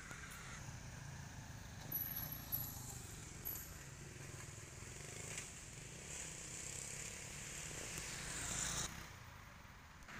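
Steady low rumble of road traffic. A motor vehicle passes, growing louder through the second half and dropping away sharply just before the end.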